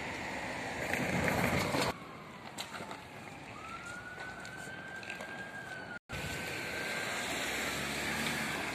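Outdoor background noise. In the middle, a faint high whine rises slightly and then sinks, holding for about four seconds.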